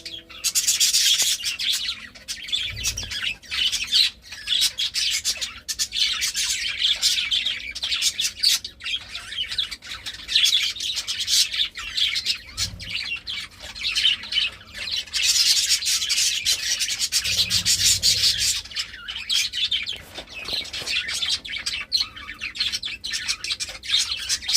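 Budgerigars chattering and warbling, a dense run of fast, high chirps and clicks without a pause.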